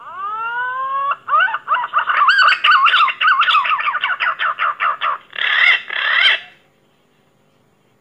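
Pink-necked green pigeon (punai gading) song: a rising whistle, then a quick run of warbling whistled notes, ending with two louder rising notes and stopping about six and a half seconds in.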